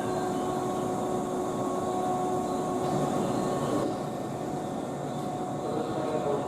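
Steady hum of an electric train standing at a station platform, its onboard equipment running, with a few faint steady tones in it.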